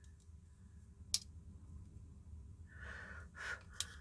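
Handling clicks from a plastic oscilloscope case and its circuit board during soldering: one sharp click about a second in and another near the end, with a breath out between them, over a low steady hum.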